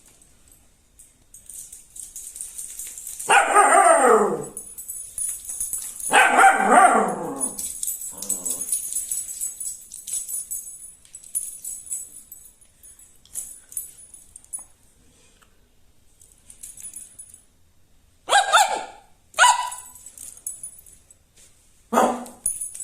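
A dog barking and crying. Two long cries fall in pitch about three and six seconds in, and a few short, sharp barks come near the end.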